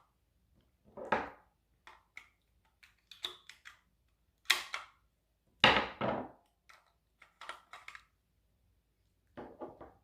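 Irregular clicks and knocks of a plastic First Alert carbon monoxide alarm and its battery being handled during a battery change, with louder knocks about a second in and twice around five to six seconds in.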